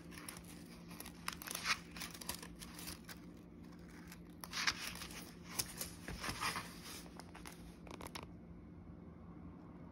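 Pages of a paperback book being leafed through by hand: papery rustles and quick flicks in bursts, stopping about eight seconds in, over a faint steady low hum.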